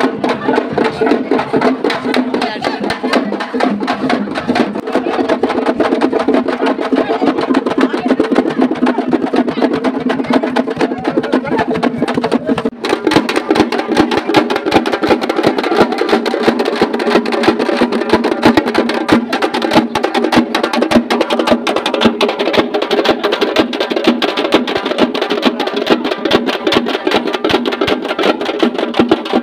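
Folk barrel drums beaten with sticks in a fast, driving rhythm, with a steady pitched melody line over the drumming; it drops out briefly about 13 seconds in.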